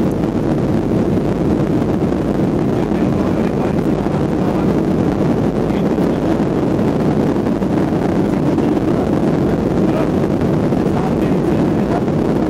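Boeing 737 jet engines at takeoff power on the takeoff roll, heard inside the cabin as a steady, loud, deep rush with a rumble beneath. A few faint rattles come through late on.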